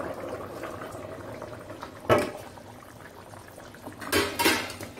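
Thick tomato-and-pumpkin curry simmering and bubbling in an open metal pan. A steel ladle stirs it and knocks against the pan about two seconds in and again a few times near the end.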